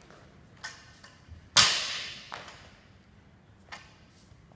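A loaded barbell with bumper plates coming down onto a rubber gym floor about a second and a half in: one heavy thud with a ringing rattle that dies away, among a few lighter clinks of the bar and plates.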